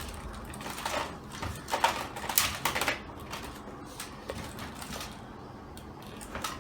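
Hard plastic toy parts being handled and fitted together while a toy dinosaur is assembled: irregular clicks, knocks and rustles, busiest in the first few seconds and sparser after.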